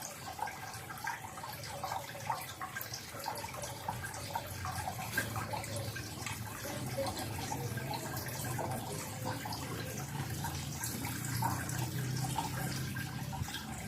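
Water running and dripping, with many small scattered drips and ticks over a steady low hum.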